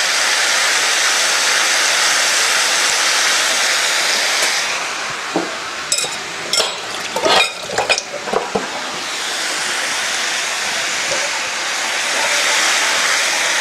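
Chunks of beef with red and green peppers and fresh tomato sizzling steadily as they fry in a pan for a stew, cooking slowly. Between about five and nine seconds in, a few short clicks and knocks sound over the sizzle.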